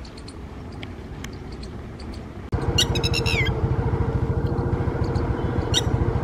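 Red-wattled lapwing calling: a quick run of sharp, high notes ending in a falling note, and another single sharp note near the end. Under it a steady low engine-like rumble starts abruptly about two and a half seconds in.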